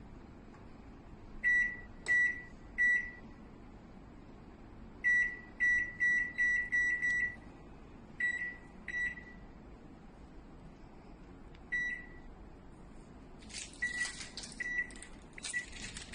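Sharp R207EK microwave oven's control-panel beeper giving a dozen or so short, same-pitched beeps in irregular groups, as its settings are keyed in. Near the end comes a couple of seconds of rustling, handling noise with a few more beeps through it.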